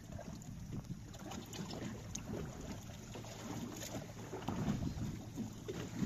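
Sea water lapping and sloshing against the hull of a small fishing boat, with wind rumbling on the microphone and a few faint knocks.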